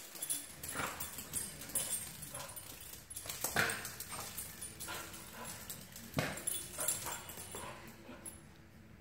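A dog jumping and scrabbling on a hard floor, its claws clicking and skittering, with two louder sharp sounds about three and a half and six seconds in.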